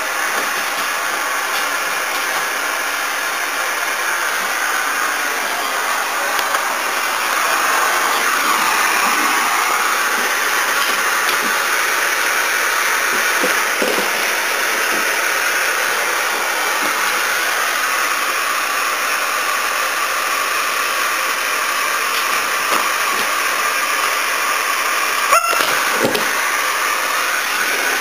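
Canister vacuum cleaner running steadily with its hose and nozzle lying on the floor, an even motor-and-suction noise, with one sharp knock about three seconds before the end.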